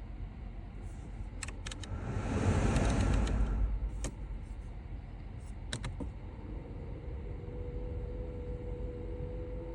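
Seat Leon FR SC's air conditioning making an odd hum in the car cabin: a low steady rumble, a few sharp clicks, and a brief rush of air about two to four seconds in. About two-thirds of the way through a steady hum with a couple of level tones sets in.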